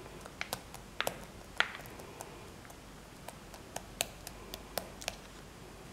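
Handling sounds as fresh cream is put into a steel mixer-grinder jar: a string of small, irregular clicks and taps, the sharpest about a second and a half in.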